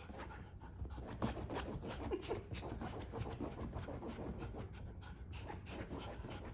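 Miniature poodle digging at a fabric couch cushion with one paw: a run of quick, irregular scratching strokes of claws on upholstery, with the dog panting, worn out from play.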